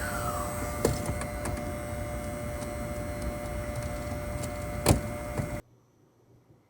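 Steady mechanical running noise with a faint hum of constant tones and a couple of sharp clicks, the louder one about five seconds in; it cuts off abruptly shortly after.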